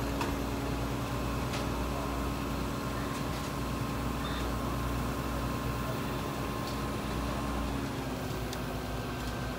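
Steady drone of running heavy machinery, with a hum tone that stops about eight seconds in, and a few faint clicks.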